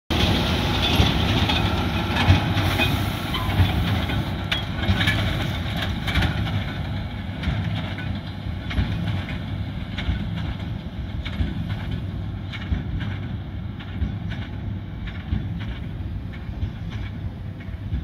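John Deere 7930 tractor running with a Krone big square baler at work, the baler knocking over and over as it packs straw. Loudest at first, growing fainter as the rig moves off.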